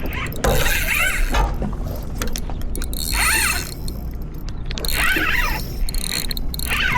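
Fishing reel being cranked while fighting a hooked fish: its gears whir in repeated bursts about every two seconds, the pitch rising and falling with each stroke. A low steady rumble lies underneath.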